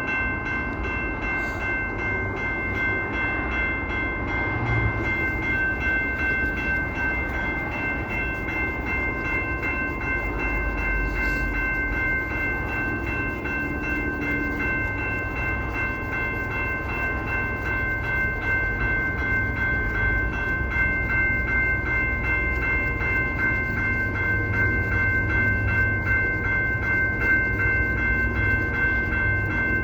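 CPKC train passing, its low rumble under several steady high-pitched tones that hold unbroken throughout.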